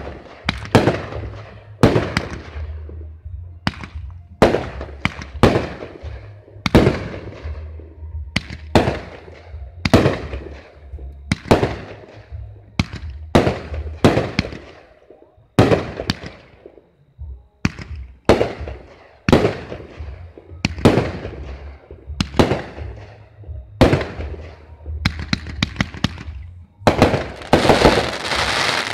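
Aerial firework shells bursting in quick succession, about one sharp bang a second, each followed by a fading echo. Near the end a dense burst of crackling, louder than the rest.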